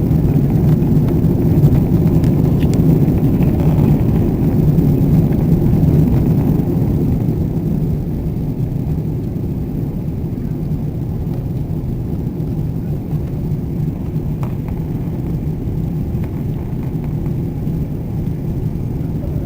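Boeing 777 jet engines running at takeoff power: a steady, loud, low rumble that eases a little about seven seconds in.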